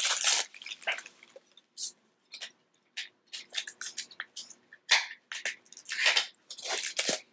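Plastic wrapping being picked at and peeled off a deck of playing cards by hand: irregular, sharp crinkles and rustles with short pauses between them.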